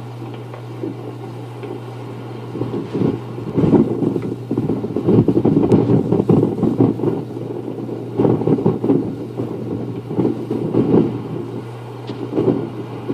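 Gusty wind buffeting the camcorder microphone, swelling and dropping every second or two, over a steady low hum.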